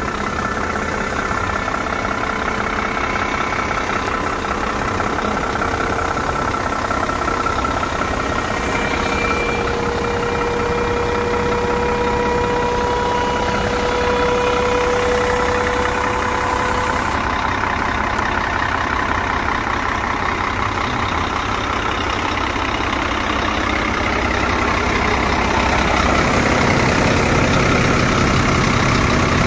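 Scania P380 truck's diesel engine idling steadily, a little louder near the end.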